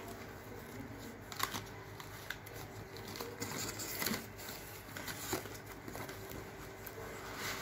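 Packaging being handled during an unboxing: scattered light clicks, taps and rustles.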